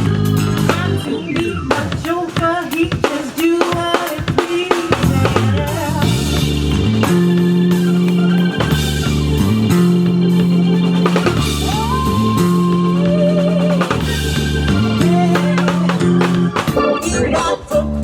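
Band music with drum kit: snare, bass drum and rimshots over sustained bass and keyboard notes.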